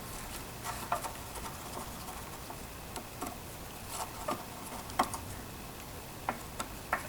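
Scattered light clicks and taps of hand tools and small metal parts being handled while taking apart a lathe headstock; a few sharper ticks about a second in, around five seconds in, and several near the end.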